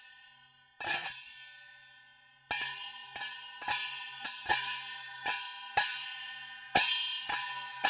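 Chinese cymbal struck: one ringing crash about a second in, then from about two and a half seconds a quick run of repeated strikes, roughly two to three a second, each ringing on into the next, the loudest near the end.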